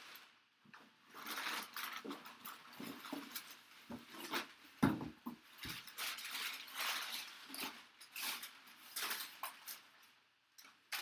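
Crumpled brown packing paper rustling and crinkling in bursts as it is pulled out of a cardboard box and a helmet in a cloth drawstring bag is lifted out, with a couple of dull thumps about five seconds in.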